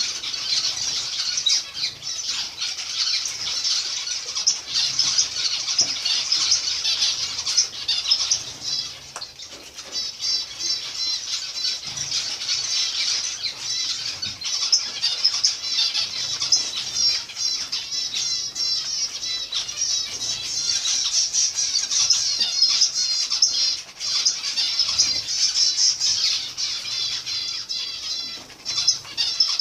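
A group of zebra finches calling continuously: many short, high calls overlapping in a dense, unbroken chatter.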